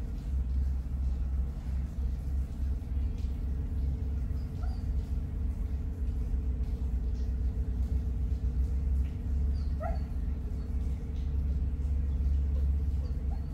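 Steady low rumble with a steady hum. A few faint short barks about four, ten and thirteen seconds in.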